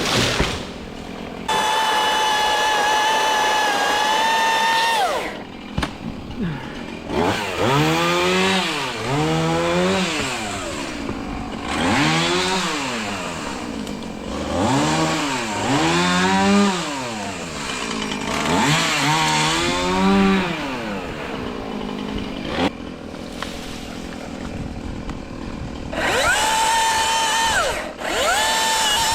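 Battery-powered Milwaukee top-handle chainsaw running at full speed with a steady high whine, then cutting, its motor pitch rising and falling over and over for about fifteen seconds. It whines steadily at full speed again near the end.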